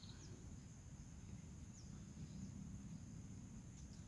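Faint open-air ambience: a steady high-pitched insect drone with a few brief high chirps, over a constant low rumble.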